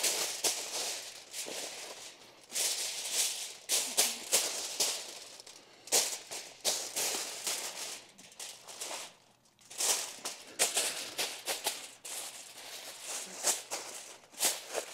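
Sheets of heavy-duty aluminium foil crinkling and rustling in irregular bursts as they are spread out and pressed flat by hand in overlapping layers.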